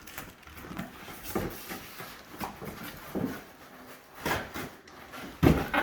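A cardboard shipping box being handled and opened, with short, irregular bursts of rustling and scraping.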